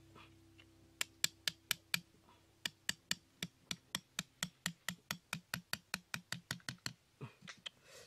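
Small hatchet striking in quick, even blows: a run of sharp knocks, about four a second at first and then slightly slower, stopping about a second before the end.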